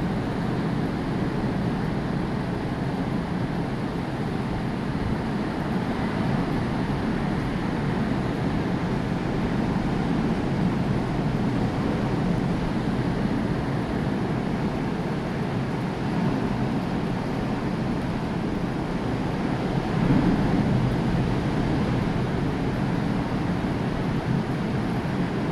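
Heavy, storm-driven surf: a continuous wash of breaking waves mixed with wind, swelling slightly about twenty seconds in.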